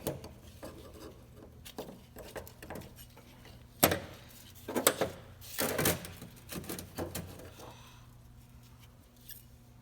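Clutch plates and friction discs from a Trac Lok limited-slip differential's clutch pack being laid out one at a time: scattered metallic clinks and knocks, the sharpest about four seconds in.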